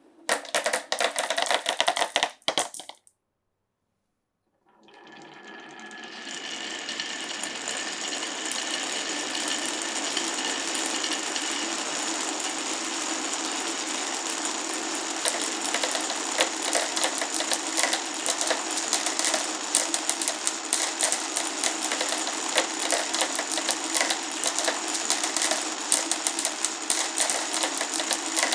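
Marbles rolling and clattering along a wooden marble run: about three seconds of dense clicking, a short gap of silence, then a steady rattle of many marbles rolling with constant clicks, fading in over a couple of seconds and carrying on.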